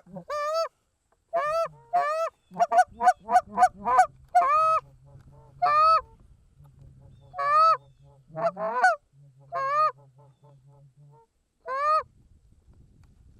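Goose calls blown in a run of loud two-note honks, with a quick burst of short clucks about three seconds in, calling to geese flying over the decoy spread.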